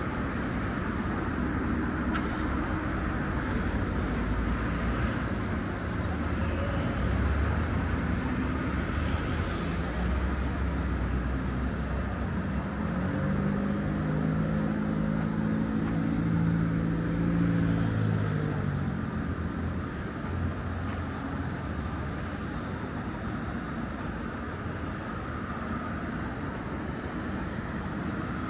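Downtown street traffic: a steady wash of passing cars, with one vehicle's engine hum swelling and fading as it goes by about halfway through.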